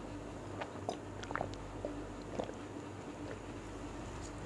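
A person sipping and swallowing water from a glass: a few faint, spaced-out wet mouth clicks and gulps over a low steady hum.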